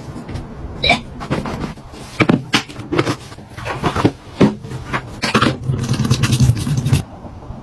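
A series of clicks, knocks and scrapes from objects being handled, with a low steady hum for a second or two near the end.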